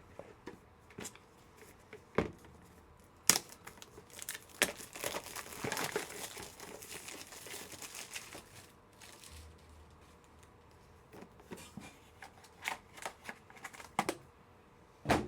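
Plastic wrapping crinkling and tearing as the next card is unwrapped, with scattered sharp clicks of hard plastic card cases being handled. The crinkling is densest for a few seconds in the middle, then gives way to a few clicks near the end.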